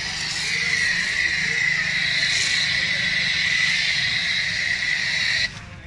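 Pressure-washer foam cannon spraying thick foam: a steady high hiss that cuts off suddenly near the end.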